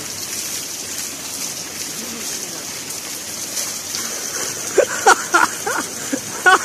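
Water pouring steadily from a pipe spout and splashing onto the rocks and a person bathing beneath it. Short bursts of voice come in during the last two seconds.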